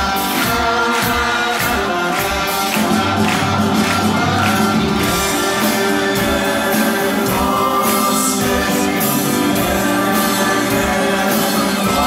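Live rock band playing with singing: drums keep a steady beat about twice a second under electric guitars and keyboard.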